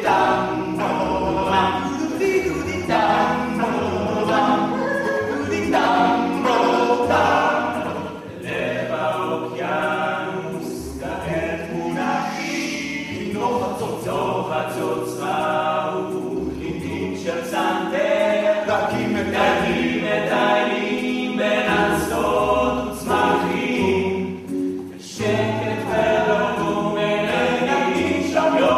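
Male vocal group singing together in harmony without instruments, a cappella.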